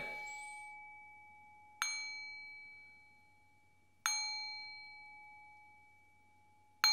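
A bell-like metal chime struck three times, about two to three seconds apart, each strike giving the same ringing tone that fades away; a ring from an earlier strike is dying away at the start.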